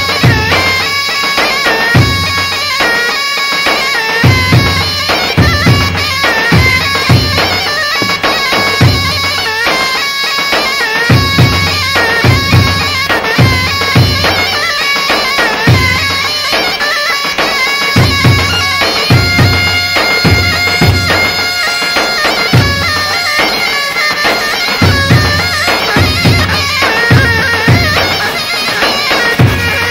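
Loud dabke dance music: large double-headed tabl drums beat a steady, driving rhythm under a piercing, reedy wind-instrument melody.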